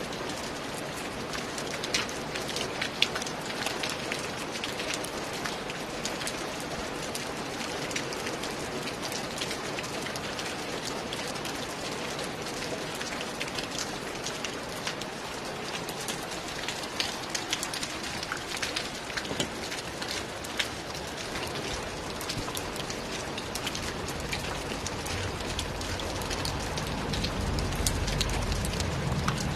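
Steady rain falling, with many sharp individual drops ticking on a hard surface. A low rumble swells in over the last several seconds.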